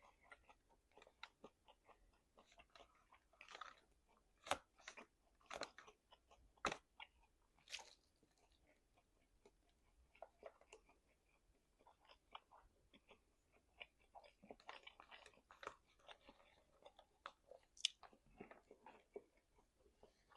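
A person chewing meat close to the microphone: quiet, irregular wet mouth clicks and smacks. A handful of louder bites come about four to eight seconds in, and one sharp click comes near the end.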